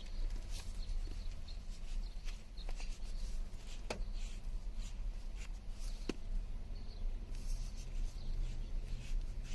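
Handling noise over a low steady rumble: small rustles and ticks, with two sharp clicks about four and six seconds in.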